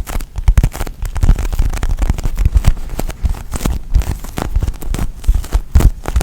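Bread-shaped squishy foam toy squeezed and handled close to the microphone: a dense, irregular run of crackling clicks and soft low thumps.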